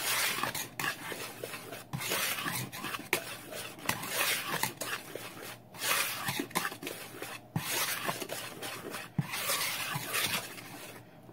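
Wire whisk stirring dry flour, baking powder, sugar and salt in a plastic mixing bowl. It makes a continuous run of scraping, rubbing strokes with a few short pauses.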